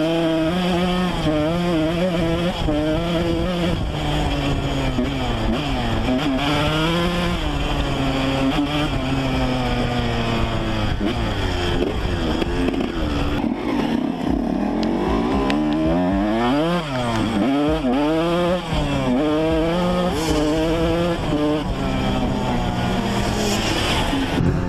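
Yamaha YZ125 two-stroke motocross engine running, its revs rising and falling again and again.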